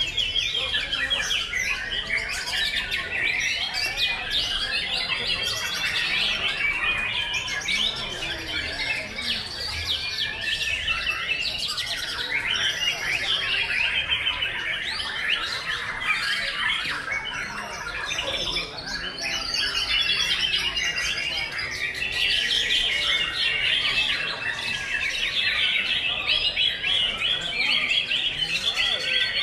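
Many caged white-rumped shamas (murai batu) singing at once in a dense, unbroken chorus of fast whistles, trills and chirps, a field of competing male songbirds.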